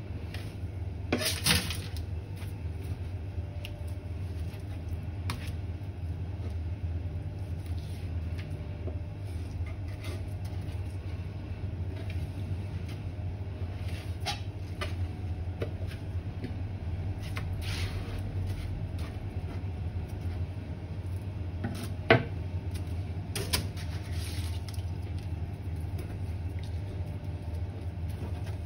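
A steady low machine hum, with a few light knocks and clinks of a steel filleting knife on a plastic cutting board while sea bream are filleted; the sharpest knock comes about two-thirds of the way in.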